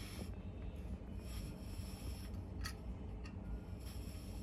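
Portable butane camping stove being handled with its gas cartridge fitted, giving a couple of light clicks about two and three seconds in over low background noise.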